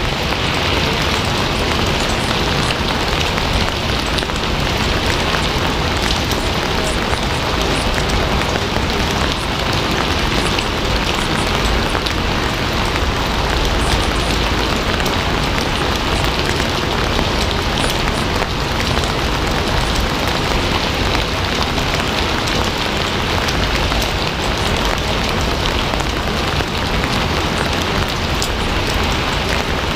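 Steady, heavy rain falling on a surface, an even hiss with scattered drop patter.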